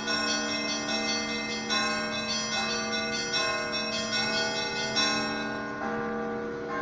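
Orthodox cathedral bells ringing in a peal, with a new bell struck about every half to one second over the sustained hum of the larger bells. The strikes stop about five seconds in and the bells ring on, fading.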